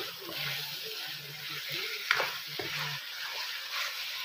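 Raw chicken pieces and diced onion sizzling in a nonstick frying pan while a spatula stirs and turns them, with a sharp knock of the spatula on the pan at the start and a louder one about two seconds in.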